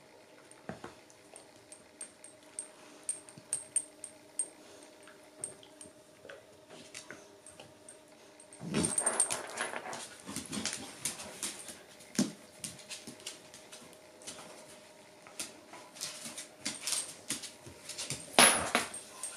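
A Shiba inu and a bull mastiff play-fighting: light clicks and scuffles throughout, with loud rough bursts of dog vocalising at about nine seconds in and again near the end.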